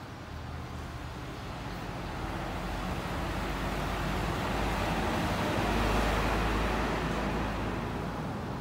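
A road vehicle passing by: its engine and road noise swell over several seconds to a peak about six seconds in, then fade.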